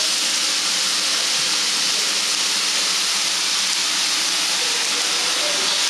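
Raw minced beef sizzling in hot oil in a wok as handfuls are dropped in: a steady hiss.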